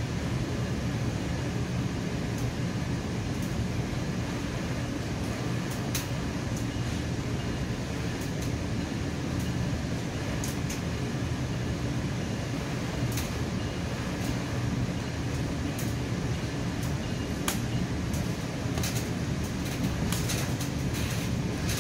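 Steady rumble and hum inside the passenger car of a moving commuter train, with scattered light clicks that come more often near the end.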